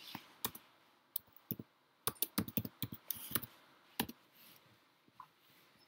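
Computer keyboard typing: scattered key clicks, then a quick run of keystrokes about two seconds in as a search word is typed, and a single stronger click about four seconds in.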